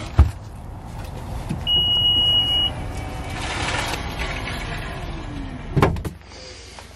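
Grocery bags set down in a car's cargo area with a couple of sharp thumps, then a single steady electronic beep lasting about a second. Near the end the rear hatch closes with a thud, and the sound goes duller afterwards.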